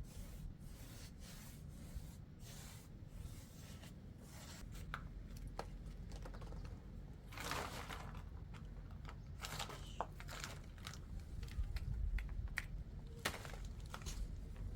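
Irregular rustling, crinkling and clicking handling noises, a few sharper clicks among them, over a low steady rumble.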